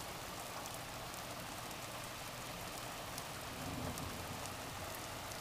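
Steady heavy rain falling: an even hiss with scattered drop ticks, and a brief low rumble a little past halfway.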